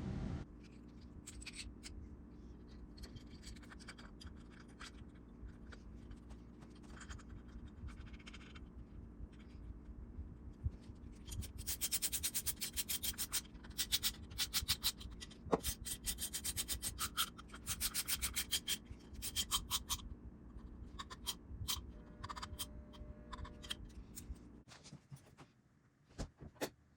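Abrasive rubbing by hand: scattered scraping strokes that build into a dense run of quick back-and-forth strokes in the middle, then thin out, over a steady low hum.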